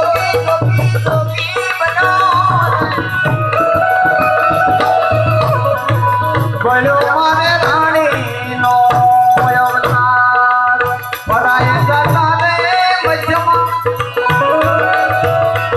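Gujarati santvani devotional music: a sung bhajan with melodic accompaniment over steady tabla drumming.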